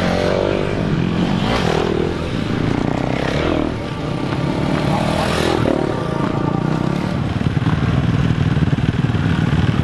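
Motocross bike engine revving hard, its pitch climbing and dropping again and again as the throttle is opened and shut.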